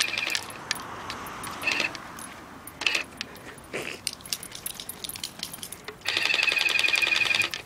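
Battery-powered Nerf Super Soaker Lightning Storm water blaster firing in bursts: its motor-driven pump whines steadily with the hiss of the water jet. A burst ends just after the start, two short squirts follow about a second and a half and three seconds in, and a longer one runs from about six seconds in to near the end.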